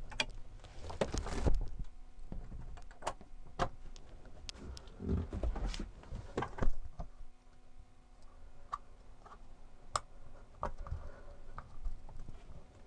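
Scattered clicks, knocks and rattles of a pop-up truck camper's aluminium roof and frame being pushed up by hand on its four gas struts, with heavier knocks about a second in and again around five to six seconds in.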